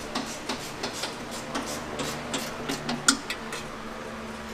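Irregular metallic clicks and knocks from hand tools and exhaust hardware being handled under the car, a few per second, with one sharper clank about three seconds in.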